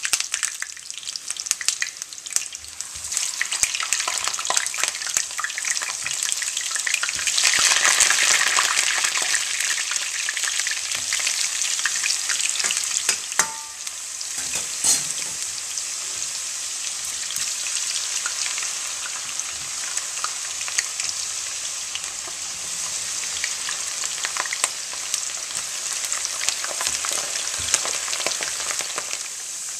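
Raw potato slices frying in hot oil in a stainless steel skillet: a steady sizzle with many small crackles, louder for a while about seven seconds in as more slices go into the oil.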